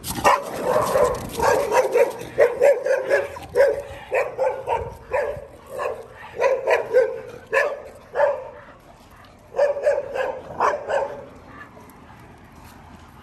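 A dog barking repeatedly in short, quick barks, a few a second, with a brief pause about two-thirds of the way through; the barking stops shortly before the end.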